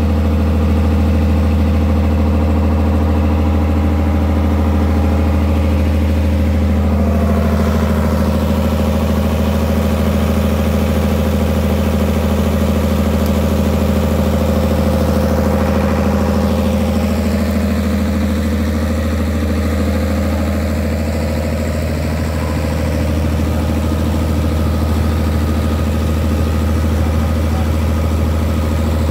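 Small petrol engine running steadily at one constant speed, an even hum that does not change in pitch.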